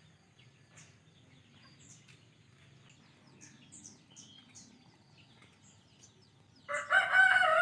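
Small birds chirping faintly, then near the end a rooster crows loudly for about a second.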